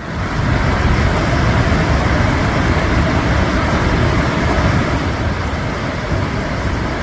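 Floodwater rushing through the rocks of a river channel in full flow: a loud, steady rush that steps up in level right at the start.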